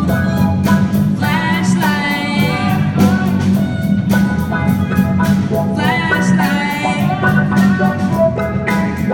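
A solo singer sings with vibrato over an accompaniment with a steady beat.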